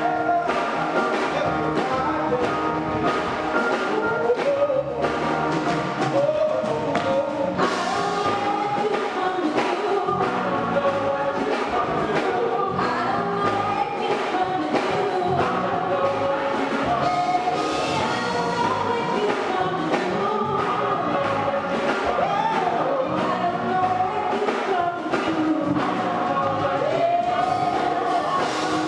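Live gospel worship song: voices singing together with a band accompanying, and a steady beat.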